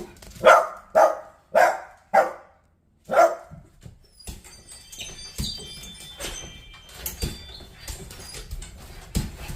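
A dog barks five times in quick succession, then whines more quietly and thinly, excited at its owner coming home.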